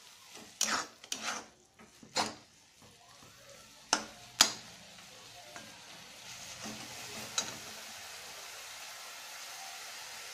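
Metal spatula stirring grated beetroot halwa in a metal kadhai, scraping and knocking sharply against the pan several times in the first half, with one more knock at about seven and a half seconds. The cooking mixture sizzles, with a steady hiss growing louder from about six seconds on.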